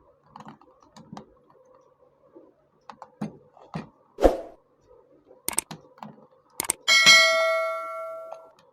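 Small metallic clicks and knocks as a drill chuck is tightened with its key, then a loud clang of steel about seven seconds in that rings on like a bell and fades over about a second and a half.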